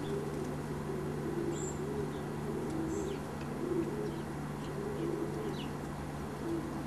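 Soft, short, low calls repeated about six times, with a few faint high bird chirps over a steady low hum.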